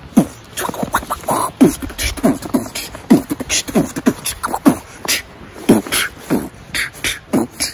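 A person beatboxing a steady 'boots and cats' beat: deep mouth kick drums that drop in pitch, alternating with sharp hissing hi-hat and snare sounds.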